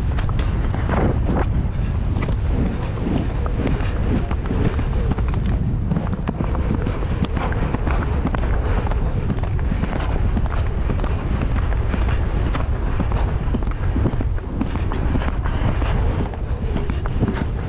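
Horse galloping on grass, its hoofbeats drumming in a quick rhythm, with wind rushing over the rider's helmet-camera microphone.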